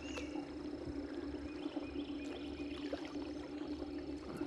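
Boat's Johnson outboard motor running steadily, pushing the boat slowly along.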